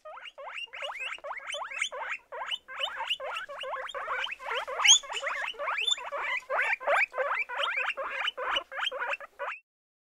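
Guinea pig squeaking in a rapid series of short rising squeaks, about four or five a second, that stops shortly before the end.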